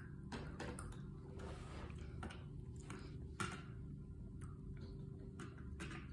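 Faint scattered clicks and light taps as a toddler handles snacks and a toy car on a plastic high-chair tray, over a low steady hum.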